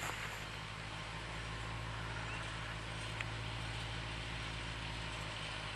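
Tractor engine running steadily while pulling a hay turner, a constant low hum with no change in pitch.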